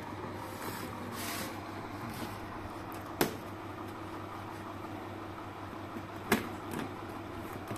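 A long cardboard shipping box being handled on a stone floor: rustling of cardboard, then two sharp knocks about three seconds in and about six seconds in, as the box is set down and a knife blade meets it, over a steady low hum.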